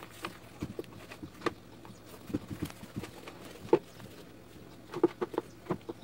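A cloth rubbing over the plastic housing of an Arno Optimix Plus blender base, with scattered light taps and knocks as the base is handled, a small cluster of them near the end.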